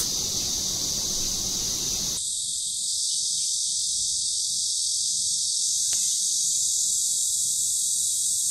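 Steady high-pitched hiss, even and without pulses, with one faint click about six seconds in.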